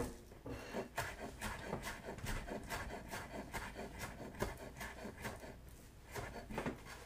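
Kitchen knife chopping scallions on a wooden cutting board: a run of sharp knocks of the blade against the board, about two to three a second, slightly irregular.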